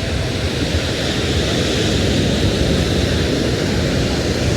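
Steady rushing noise of breaking surf and wind, under the drone of a motor running.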